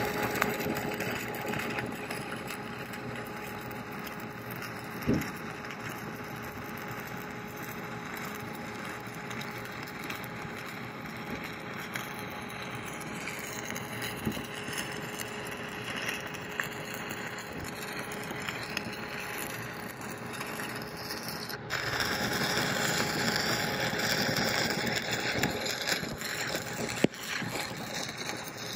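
Stick-welding arc from a 7018 electrode crackling and hissing steadily as the middle bead of a cap pass is laid. It has a faint steady hum beneath, one brief pop about five seconds in, and it gets louder and harsher about three-quarters of the way through.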